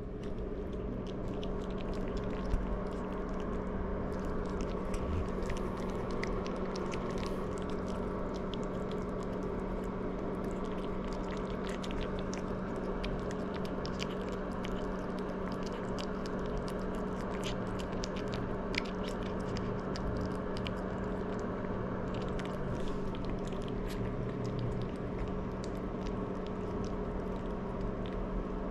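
Maltese puppy crunching and chewing dry kibble from a hand, a steady stream of small crisp crunches and clicks. A steady low hum runs underneath.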